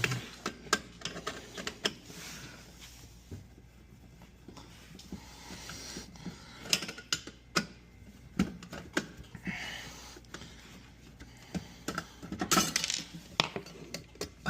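Scattered metallic clinks, clicks and knocks, with a couple of brief scrapes, from work on an under-counter dishwasher as it is unhooked for removal.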